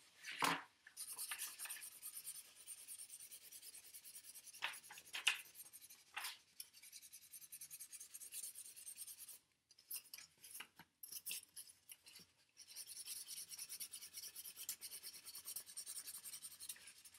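Felt-tip marker scribbling back and forth on a cardboard paper towel tube, a faint steady rasping that pauses twice, with a few light knocks as the tube is handled.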